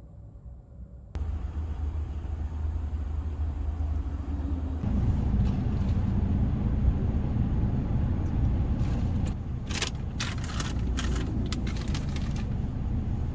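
Car driving: steady low engine and road rumble that cuts in abruptly about a second in and gets louder about five seconds in, with a run of short clicks and rattles near the end.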